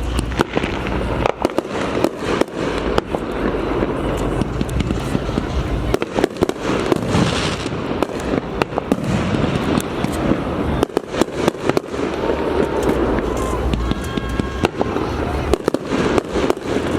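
Aerial fireworks going off in rapid succession: many sharp bangs and crackles overlapping without pause, with people's voices underneath.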